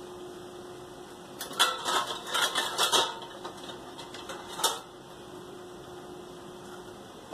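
A run of quick clicks and light knocks lasting about a second and a half, then one more knock a little past the middle, over a steady low hum.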